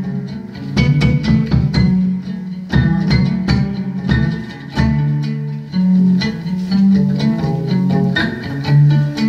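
Ngoni, the West African plucked lute, played solo in quick, sharply plucked repeating phrases over low notes that move between two pitches.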